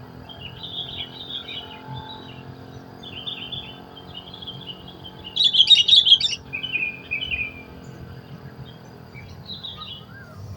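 Sooty-headed bulbuls (kutilang) chirping in a string of short calls, with a louder, denser flurry of chirps about five to six seconds in.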